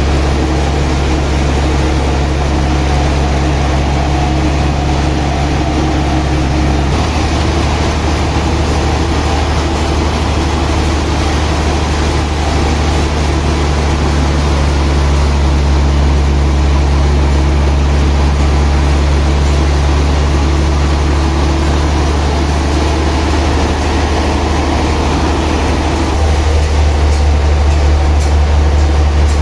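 Sawmill machinery running with a steady low hum and drone. The sound shifts abruptly about a quarter of the way in and again near the end.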